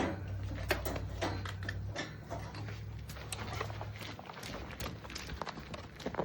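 Scattered light clicks and knocks, over a low steady hum that drops away about two seconds in.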